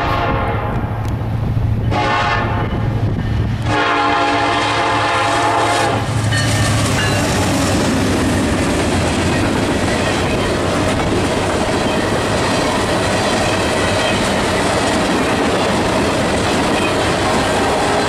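Norfolk Southern diesel locomotive sounding its horn for about the first six seconds, with two short breaks, as it passes close by with its engine running. Then a string of tank cars rolls past with steady wheel-on-rail noise.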